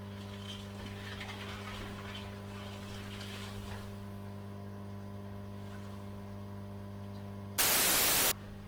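Steady electrical mains hum with a faint hiss of static. Near the end a loud burst of white-noise static lasts under a second, then cuts off suddenly.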